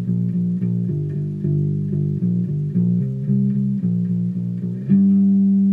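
Unaccompanied electric bass played with the fingers: a riff of short, repeated plucked notes stepping between a few low pitches, ending about five seconds in on one long ringing note.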